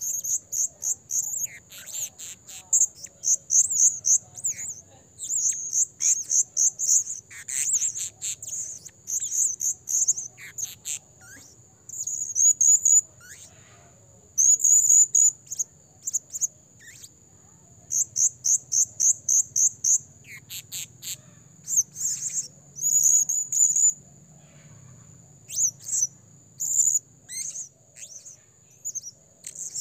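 Male blue-crowned hanging parrot calling: rapid runs of shrill, very high chirps in bursts of a second or two with short pauses. This is a lure bird calling freely. A steady high insect whine runs underneath.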